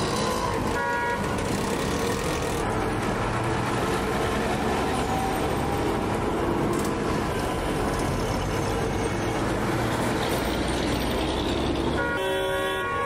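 Busy street traffic, with engines running under a steady rumble. A vehicle horn gives a short toot about a second in, and a longer horn blast sounds near the end.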